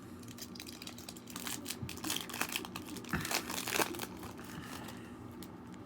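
A foil trading-card pack wrapper crinkling as it is torn open and the cards are handled. It makes a run of small crackles and rustles that eases off after about four seconds.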